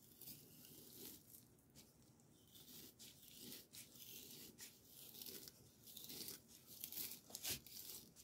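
Faint crackling and scraping of a kitchen knife slicing through a partially frozen chicken breast, in short irregular strokes, a little louder near the end.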